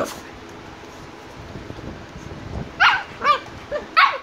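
Shiba Inu puppies play-fighting: a stretch of low scuffling, then about four short, high-pitched puppy barks in quick succession near the end.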